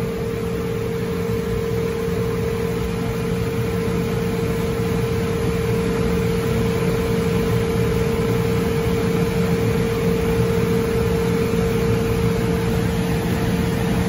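Liebert precision air-conditioning unit running with its compressors on: a steady machine hum with a constant mid-pitched tone over an even rushing noise.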